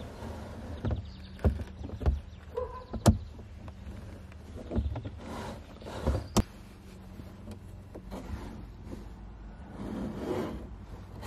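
Scattered clicks and knocks of a kayak's foot-pedal slide and rudder steering cables being handled and threaded through, with a softer rustle near the end.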